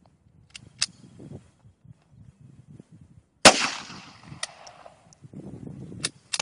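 One sharp unsuppressed .22LR pistol shot from a Ruger Mark I, with an echoing tail that fades over about a second and a half. A few light clicks come before and after it.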